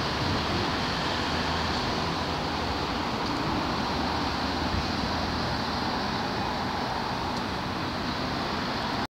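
Steady road traffic on a busy multi-lane city road: cars, vans and buses passing in a continuous wash of noise that cuts off suddenly near the end.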